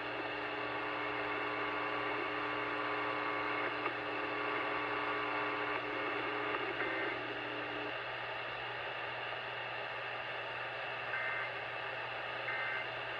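Radio receiver static and hiss over a steady low hum, with several steady tones that stop about six to eight seconds in. Short two-tone beeps come about seven seconds in and twice near the end, about a second and a half apart.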